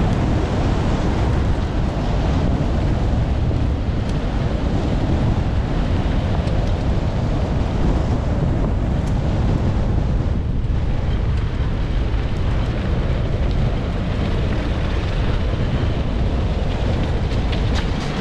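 Steady wind noise rushing over the microphone, mixed with a low rumble of wheels rolling on a dirt road behind a four-dog team running at speed.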